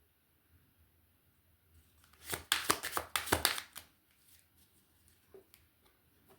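Rune pieces rattling and clicking against each other as they are shaken and drawn: a burst of sharp clicks lasting about a second and a half a little over two seconds in, then a few light taps.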